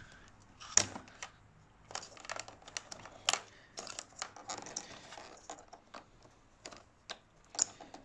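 Scattered sharp plastic clicks and rustling of wires as the XT60 battery connectors under an electric motorcycle's seat are pulled apart and re-plugged. The clearest clicks come a little under a second in, about three seconds in and near the end.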